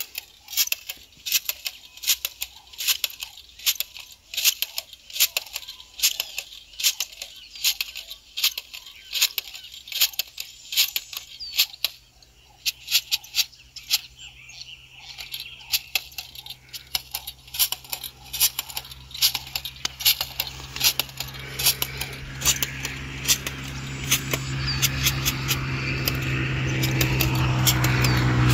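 Crisp crunching clicks, about two to three a second, of footsteps on dry, crumbly tilled soil. From about halfway, a steady engine hum comes in and grows louder toward the end.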